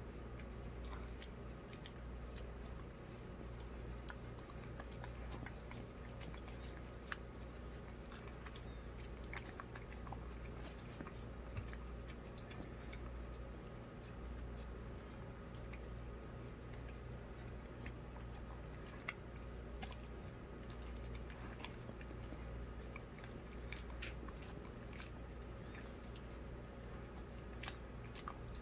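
A greyhound eating soft canned dog food from a paper plate: scattered small wet clicks of licking and chewing. A low steady hum runs underneath.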